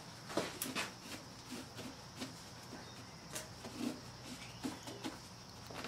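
Faint handling sounds of a black-gloved hand wiping around the power steering reservoir with a rag: a few light clicks, then a run of small squeaks.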